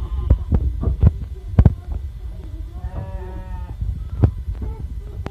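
A Garut sheep bleats once, for just under a second, about three seconds in, over repeated dull thumps and knocks.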